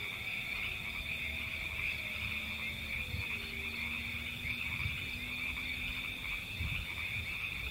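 A steady, high-pitched night chorus of frogs from a wetland, with a faint low tone that glides slowly downward in the first half.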